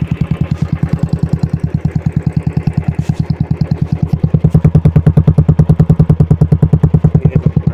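Royal Enfield motorcycle engine running at a low, steady speed, its exhaust giving about ten even pulses a second. The pulses grow louder about halfway through as the throttle is opened slightly.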